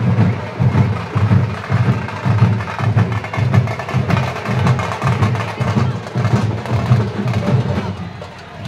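A troupe of drummers beating large waist-slung barrel drums in a fast, steady driving rhythm, with crowd noise around them. The drumming drops a little in level near the end.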